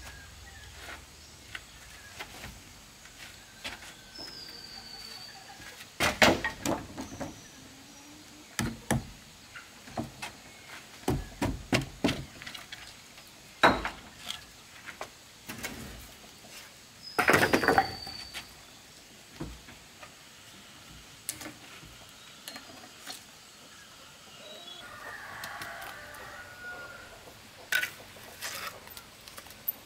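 Irregular sharp knocks and scrapes, in clusters, typical of hand building work. A bird chirps a few times in the background.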